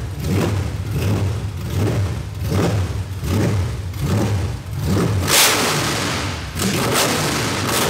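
Supercharged Ford 5.4-litre V8 from an SVT Lightning, running on a stand with open headers, loud, its note swelling and fading in an uneven pulse about once a second. About five seconds in, a burst of hiss lasts about a second.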